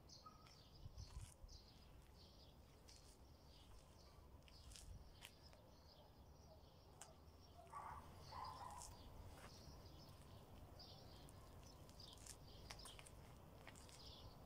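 Near silence: faint background rumble with scattered small bird chirps and a few soft ticks.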